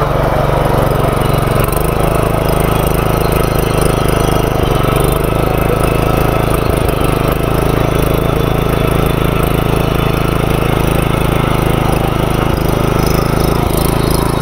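The 220 cc engine of a walk-behind power weeder (mini tiller) runs steadily under load while its rotary tines churn through weedy soil.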